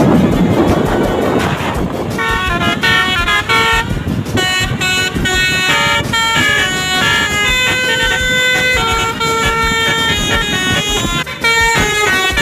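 Bus basuri (telolet) musical horn playing a tune in quick stepped notes, starting about two seconds in after a noisy rumble.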